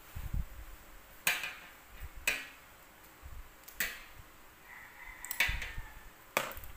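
Kitchen shears cutting up a whole boiled chicken: five sharp snaps as the blades close, at uneven intervals of about a second, with faint handling noise between.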